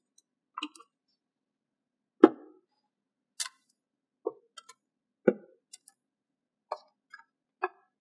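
Small magnet balls clicking as they snap onto one another: single sharp clicks at irregular spacing, about one a second, the loudest a little over two seconds in and again about five seconds in.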